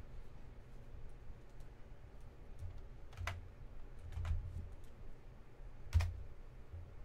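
Scattered light clicks and taps from trading cards and their plastic holders being handled on a table, with three sharper clicks in the second half and a few low bumps.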